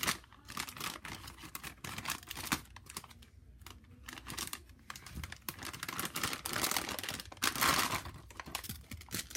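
Toy-train track packaging being handled and opened: plastic and card crinkling and tearing in irregular short rustles and clicks, with a louder, longer rustle about three-quarters of the way through.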